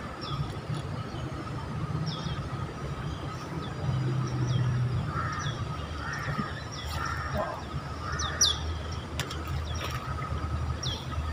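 A bird calling again and again with short, high chirps that sweep downward, one every second or two, over a low steady rumble. A few sharp clicks come about nine seconds in.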